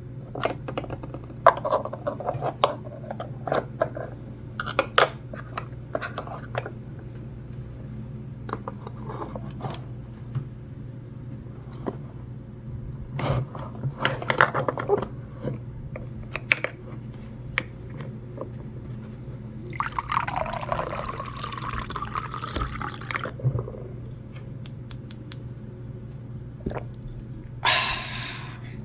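Small plastic toy pieces clicking and tapping as they are handled, then, about twenty seconds in, liquid pouring for about three seconds. A short hiss comes near the end.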